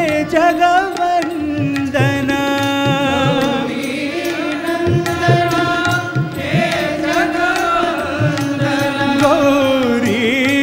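Indian devotional bhajan to Ganesha: long held, wavering melody notes over tabla beats, between sung lines.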